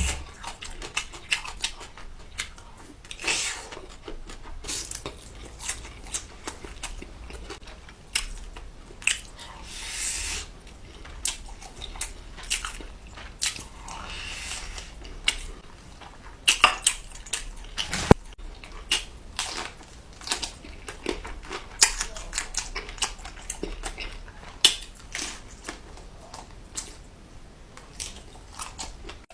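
A person chewing and biting food close to the microphone: irregular wet clicks and crunches, with a few longer hissing, slurping stretches.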